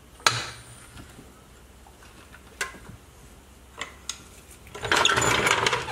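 A floor jack being let down and metal tools being handled: one sharp metallic click just after the start, two faint clicks, then about a second of metallic clinking and rattling near the end.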